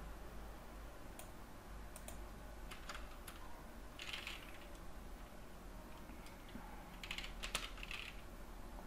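Faint computer keyboard typing: scattered keystrokes, with a cluster about four seconds in and another around seven to eight seconds in.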